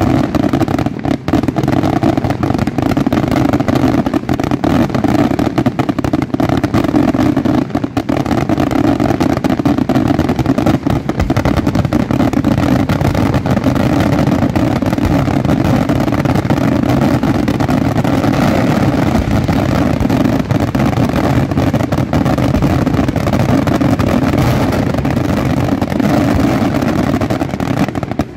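Senatore Fireworks daylight display firing a dense, continuous barrage of rapid bangs and crackling, with no let-up.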